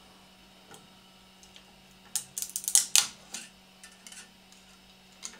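Metal scraper blade prying a clear polycarbonate print off a 3D printer's bed: a quick run of sharp scrapes and cracks about two seconds in, after a few faint ticks, over a low steady hum.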